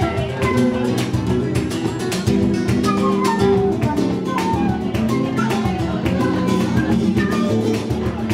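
Live flamenco music: two flamenco guitars playing runs of falling notes over a dense beat of sharp strikes from the cajón, with a transverse flute joining the ensemble.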